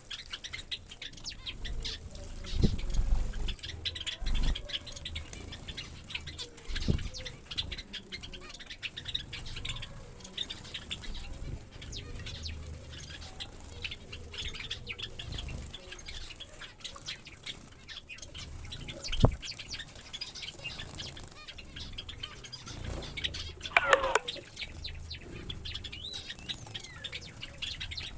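Small finches and Java sparrows bathing: wings fluttering and splashing in the water, with short high chirps throughout and a few soft thumps. Near the end one bird gives a single falling call.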